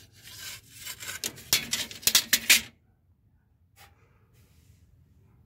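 Long chrome trim moldings clinking and rattling against one another as they are handled and shifted about. The clatter stops after about two and a half seconds, and a single click follows about a second later.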